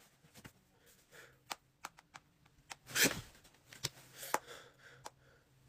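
Bedding rustling and a phone being handled as someone shifts in bed, with scattered soft taps and clicks and a louder rustle about three seconds in.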